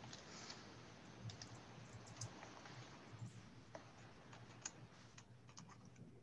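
Near silence: faint room tone with scattered soft clicks of typing on a computer keyboard.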